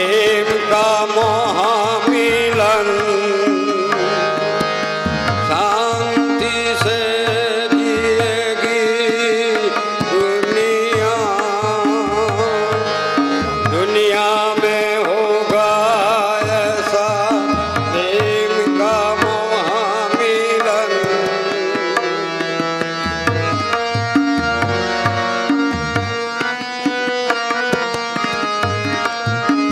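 Devotional bhajan played on harmonium and tabla: the harmonium holds its reedy chords while the tabla keeps a running rhythm with deep strokes on the bass drum. A man's wavering singing voice sits over them for roughly the first two-thirds, and after that the harmonium and tabla carry on more alone.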